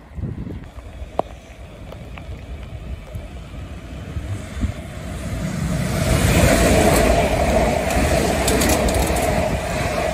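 Siemens Desiro third-rail electric multiple unit approaching and passing at speed. Its rumble and wheel noise grow from about four seconds in and are loudest over the last few seconds, with a steady hum and sharp crackles as it passes.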